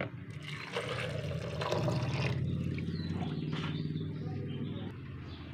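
Water poured from a jug into a plastic blender jar onto falsa berries: a steady splashing pour that trails off near the end.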